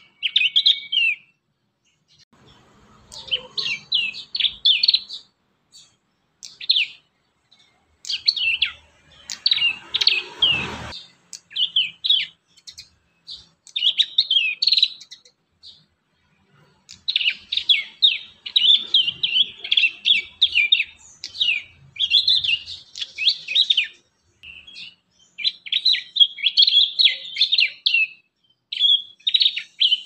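Young prinias (prenjak) chirping in quick runs of high notes: short bouts separated by pauses at first, then near-continuous chattering from about halfway through. A brief low thump comes about ten seconds in.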